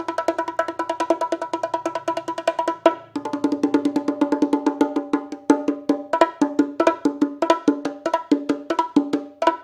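LP Aspire bongos played by hand in a cumbia pattern: a fast, even run of strokes, each with a short ringing tone, with a brief break about three seconds in.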